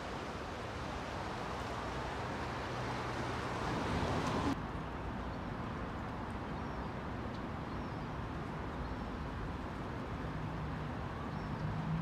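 Outdoor traffic ambience: a steady wash of road noise with a vehicle's low hum in the first few seconds. After an abrupt cut about four and a half seconds in it turns quieter, with a few faint bird chirps and another vehicle's hum near the end.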